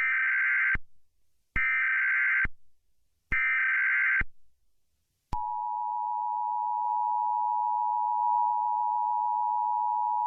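Emergency Alert System SAME header: three identical short bursts of rapid digital data tones, just under a second each and about 1.7 s apart. About five seconds in, the steady two-tone EAS attention signal starts and holds on one pitch.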